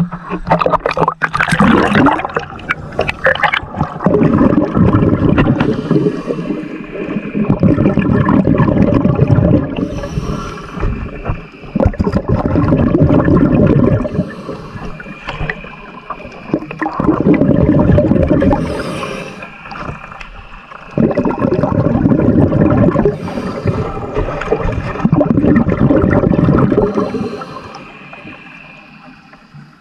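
Underwater sound of a diver breathing from a tank: exhaled bubbles gurgle in loud bursts lasting a few seconds, with quieter gaps between breaths.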